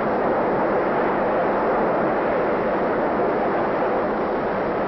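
Steady, unbroken running noise of an elevated train car in motion on the Third Avenue El.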